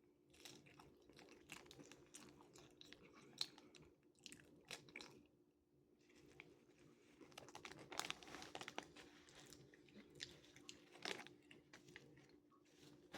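A person chewing crunchy fried food close to the microphone: quiet, irregular crunches and mouth clicks, easing off briefly partway through and then getting denser in the second half. A faint steady hum runs underneath.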